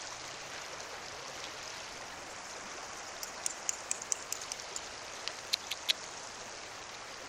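Steady hiss of running river water, with a run of small sharp clicks from about three to six seconds in.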